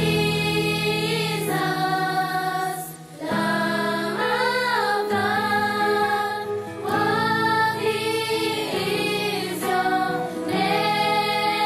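Worship music: a choir singing slow, held notes with a gentle waver in pitch.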